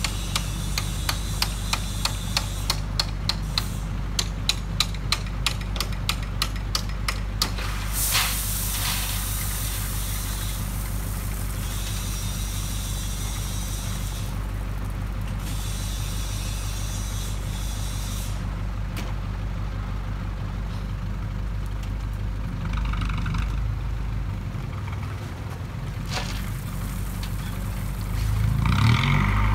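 Isuzu NKR58E tipper's 4BE1 four-cylinder diesel idling steadily. Over the first seven or so seconds a rapid run of sharp metallic clinks, about two or three a second, comes from the tailgate being worked, and a short hiss follows at about eight seconds. Near the end the engine speeds up as the tipping hydraulics are engaged to raise the bed.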